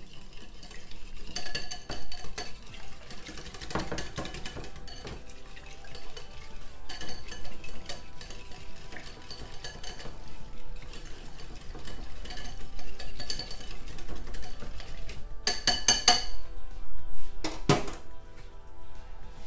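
Metal fork beating egg yolks and cream in a ceramic bowl, its tines clinking and scraping against the bowl over and over, stopping near the end.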